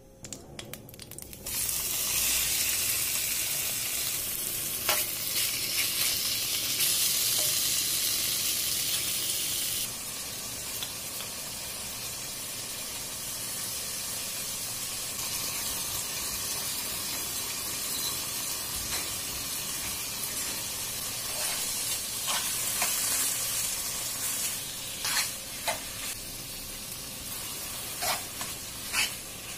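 Diced chicken sizzling as it fries in hot oil in a nonstick pan. The sizzle sets in suddenly about a second and a half in, is loudest for the first several seconds, then settles to a steadier level. Scattered clicks and scrapes come from a spoon stirring the pieces.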